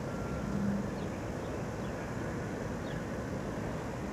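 Distant regional passenger train of MD coaches rolling slowly through the station yard: a steady low rumble, with a brief low hum just under a second in.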